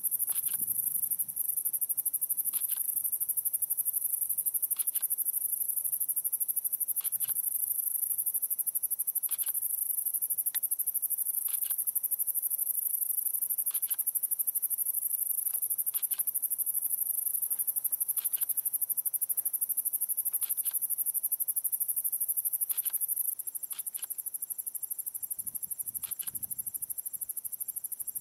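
Summer night insect chorus: a dense high-pitched cricket-like buzz, with a short call repeating about every two seconds. A faint low rumble comes near the end.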